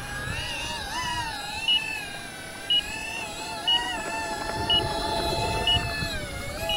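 5-inch FPV quadcopter's brushless motors and props hovering low: a whine that wavers up and down in pitch with throttle. A short high beep comes about once a second.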